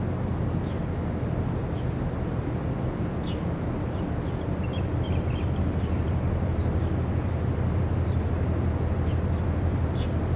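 Steady low engine rumble of a large container ship passing close by, with a few faint high chirps over it.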